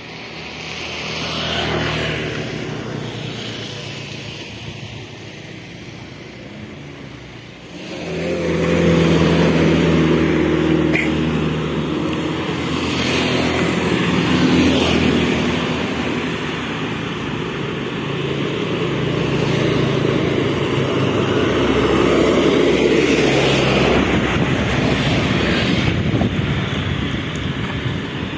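Motor vehicle engines and road noise, swelling and fading as vehicles pass, much louder from about eight seconds in.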